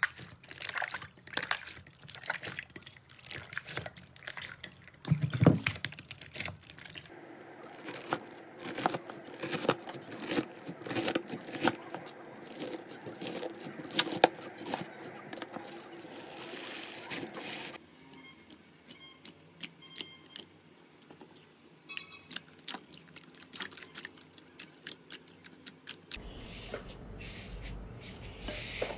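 Slime being squeezed and pressed by hand: wet squishing with many small crackling pops and clicks, the texture changing abruptly several times from one slime to the next.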